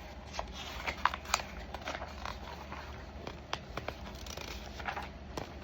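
Pages of a paperback picture book being handled and turned: scattered soft paper rustles and small clicks.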